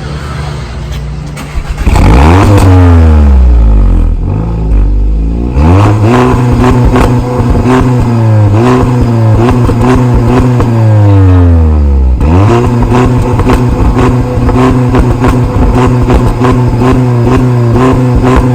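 Audi S1 Sportback's turbocharged four-cylinder engine starting up with a loud flare of revs about two seconds in that falls away, then running at a raised idle. About twelve seconds in, the engine note rises again and holds steady.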